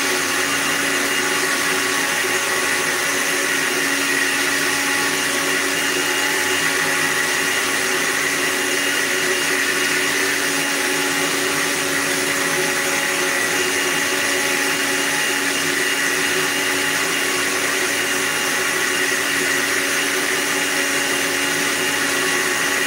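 Philips countertop blender running steadily at an even speed, blending watermelon and ginger with lemon juice and a little water into a juice.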